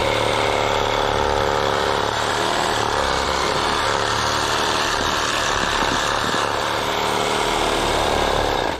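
Power cutting tool with a dull blade, running steadily as it cuts brush, then cutting off suddenly near the end.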